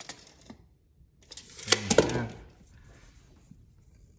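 Sharp knocks and clicks of a rule being handled and set down on a wooden floor, the two loudest knocks near the middle together with a brief muttered voice, then faint scratching.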